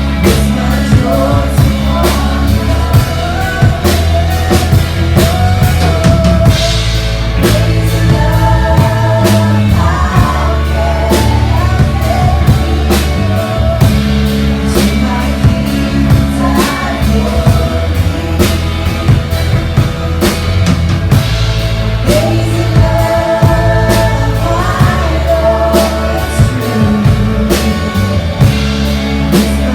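Praise-and-worship music played live: voices singing over a drum kit keeping a steady beat, with bass underneath.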